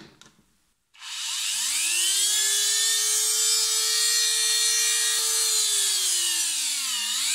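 Dremel rotary tool running unloaded: its motor spins up with a rising whine about a second in, then runs at steady speed, sagging briefly in pitch and picking back up near the end.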